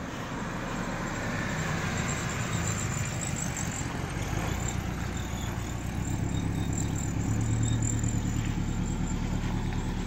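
Rebuilt Subaru Forester XT's turbocharged EJ25 flat-four running as the car drives up and pulls in close, the engine note growing louder as it nears and loudest near the end.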